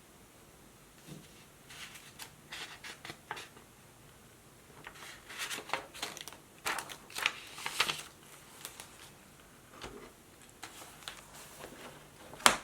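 Desk sounds from working with a laptop and a paper notebook: clusters of short taps and scratches, busiest in the middle, with one sharp click just before the end.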